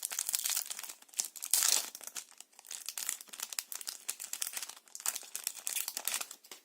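Foil booster pack wrapper being torn open and crinkled by hand, a dense crackling full of small sharp crackles that stops abruptly at the end.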